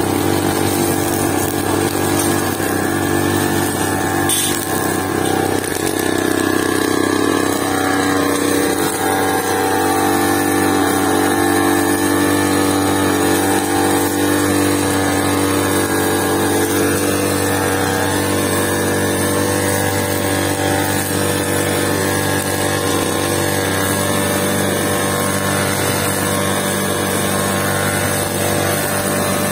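Backpack petrol brush cutter (string trimmer) running steadily at working speed while its line head cuts grass.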